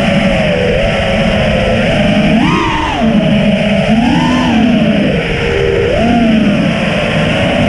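FPV freestyle quadcopter's motors and propellers buzzing over a rushing hiss, the pitch swelling and falling several times with the throttle.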